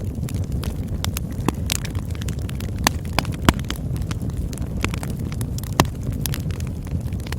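Campfire burning: a steady low rumble under frequent sharp crackles and pops, with louder snaps about three and a half and six seconds in.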